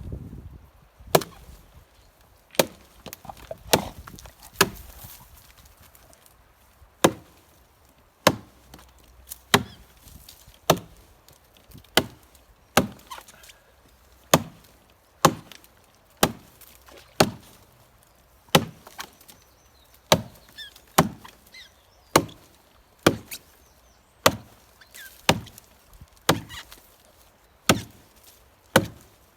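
Axe chopping into a thick log of soft, rotten wood: sharp strokes at about one a second, with a short pause some six seconds in.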